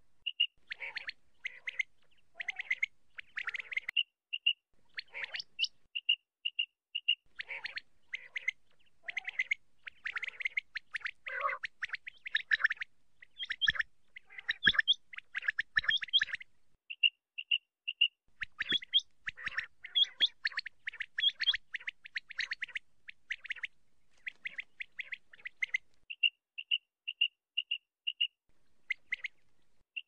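Common quail calling: short, clear, whistled notes repeated in quick runs, mixed with harsher, buzzier calls.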